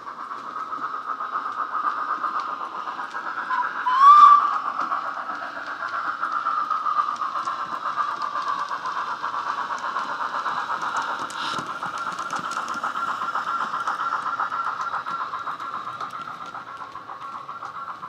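Hornby K1 model steam locomotive's DCC sound decoder playing a Wheeltappers steam sound file through a small speaker in the tender: a steady run of exhaust beats and hiss, with a short rising whistle about four seconds in.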